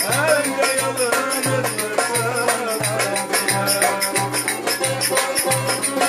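Live Turkish folk dance tune (oyun havası) with a violin carrying a wavering melody over a long-necked plucked lute and a quick, steady rattling beat, with a low note pulsing regularly underneath.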